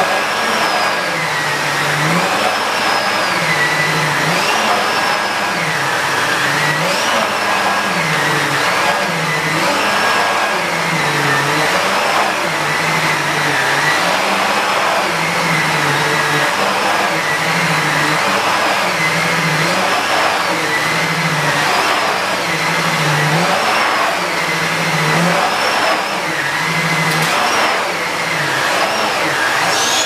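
Nilfisk GM80 canister vacuum cleaner running steadily as its floor nozzle is pushed back and forth over a shag rug. The motor's hum rises and falls in pitch with each stroke, roughly every two seconds.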